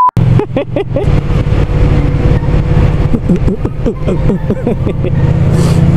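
Motorcycle engine running on the move, with heavy wind rumble on the microphone. The engine pitch rises and falls several times, then climbs slowly near the end as the bike accelerates.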